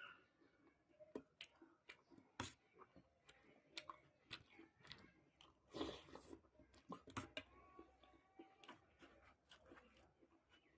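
Quiet chewing of puri and chana dal sabji, with scattered soft mouth clicks and small bites, one slightly louder burst about six seconds in.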